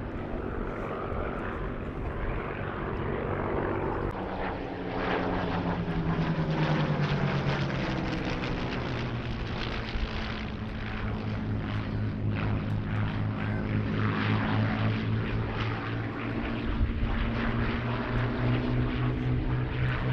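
Two Supermarine Spitfire Mk IXs' Rolls-Royce Merlin V12 engines running overhead in formation. The engine note falls in pitch as the pair passes, from about five to eight seconds in, then holds steady while growing louder near the end.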